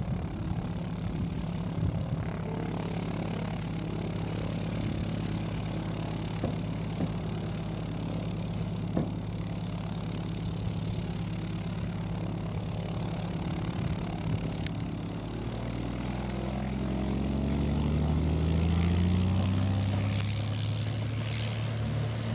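Single-engine propeller tow plane's piston engine running steadily at low power; about two thirds of the way through its note rises and gets louder as the engine is throttled up, then holds.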